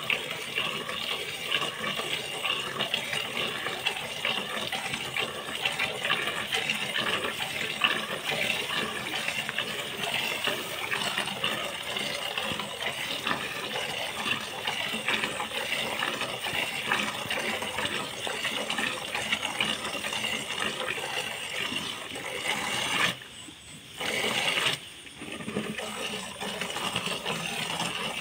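Milk squirting from a cow's teats into a plastic bucket during hand milking, a continuous rapid splashing of jets into the milk already in the pail. It drops away briefly twice near the end.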